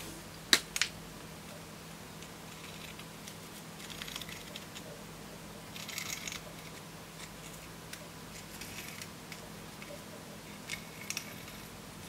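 Two sharp clicks near the start, then the felt tip of a flux pen scratching lightly in short strokes along a row of solder joints on a circuit board.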